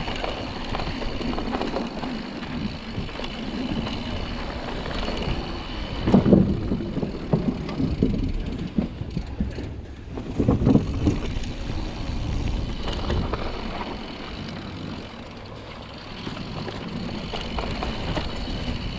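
Mountain bike rolling fast down a dirt trail: tyre noise and the bike rattling over bumps. There are heavier knocks about six seconds in and again about ten seconds in, the second as the tyres run onto a wooden plank bridge.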